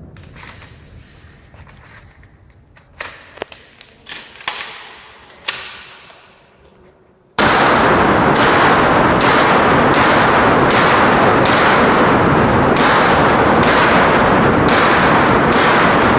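12-gauge shotgun fired during a practical-shooting stage. Scattered single shots ring out with echo, then from about seven seconds in a rapid string of blasts comes roughly every half second, so loud that the recording is overloaded.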